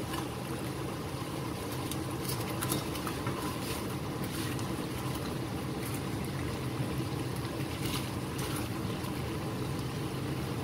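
Steady low rumble of a pan of thick chilli sambal simmering on the stove. A few faint soft knocks come from pieces of fried fish being slid off paper into the sauce with a plastic spatula.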